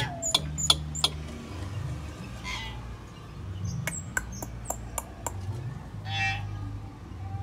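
Hill myna calling: short, sharp whistled notes, a few near the start and a quick run of about six about four seconds in, with two longer harsh rasping calls in between.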